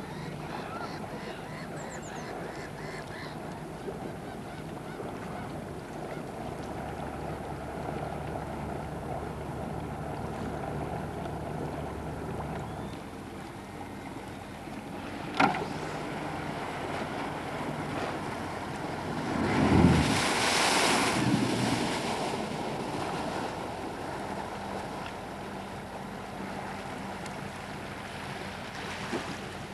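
Motorboat engines humming steadily across the water, with water lapping and wind on the microphone. A sharp click sounds about fifteen seconds in, and a louder rush of noise lasts a couple of seconds around twenty seconds in.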